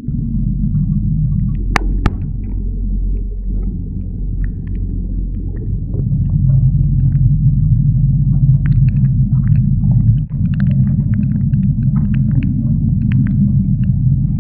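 Strong storm wind buffeting a GoPro microphone on a boat at sea: a loud, steady low rumble, louder from about six seconds in, with scattered sharp ticks and a crack about two seconds in.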